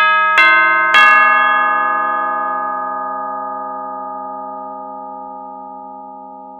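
A bell struck three times in quick succession, the strikes under a second apart, then left ringing in a long, slowly fading decay.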